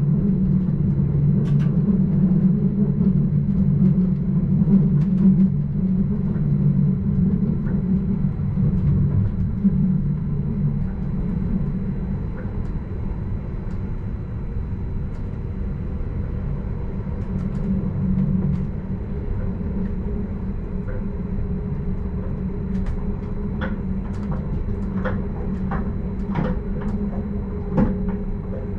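A Stadler RABe 515 'Mutz' electric multiple unit running along the line, heard from the driver's cab: a steady low rumble of wheels and drive with a steady hum. A few sharp clicks come near the end.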